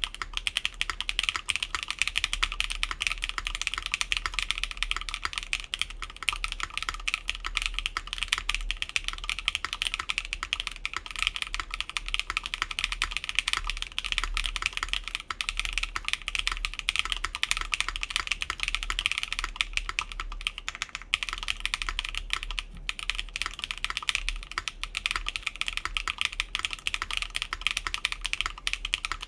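Continuous fast typing on a mechanical keyboard: lubed Keygeek Blue Cheese v2 switches on a full aluminium plate with DSA keycaps, in a gasket-mounted Slate Zero case with no foam.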